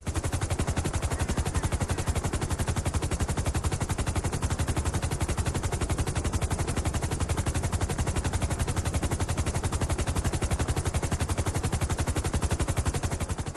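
A fast, even pulsing rattle with a heavy low end, starting abruptly and cutting off abruptly near the end.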